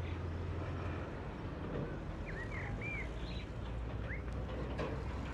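Steady low rumble of city traffic, with a few short bird chirps about two seconds in and again near four seconds.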